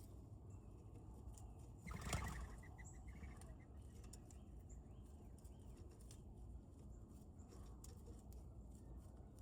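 Wild birds calling at a backyard feeder. A louder call comes about two seconds in, running into a quick series of repeated notes, with faint short chirps scattered through the rest over a low steady outdoor background.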